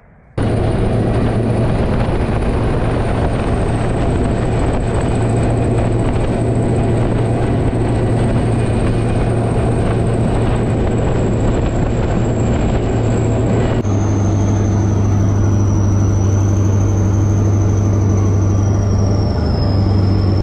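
Armoured military vehicle running on the move, heard from on top of the hull: a loud, steady engine hum with a thin high-pitched whine above it. About fourteen seconds in, the sound shifts abruptly to a slightly lower hum and whine.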